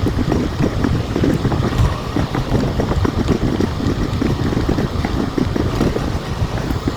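Wind buffeting an action camera's microphone on a moving bicycle: a steady, loud rumbling noise with many small rattles and knocks scattered through it.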